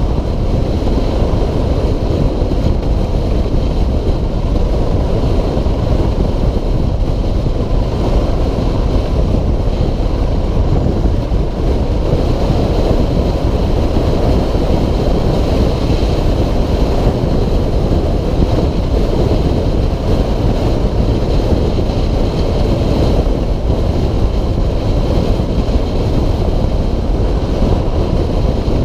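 Steady wind rush and buffeting on the microphone while riding a 2006 Suzuki DR650SE at road speed, with the bike's single-cylinder engine running underneath at an even pace.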